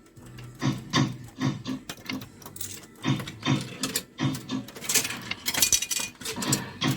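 Arcade fruit machine playing: a rhythmic string of short electronic blips and clicks, about two a second, growing louder and brighter near the end.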